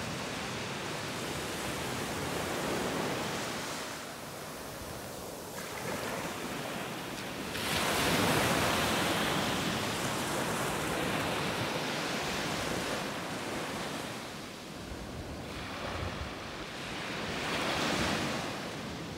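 Ocean surf breaking and washing up a sandy beach, a steady rush that swells loudest about eight seconds in and again near the end.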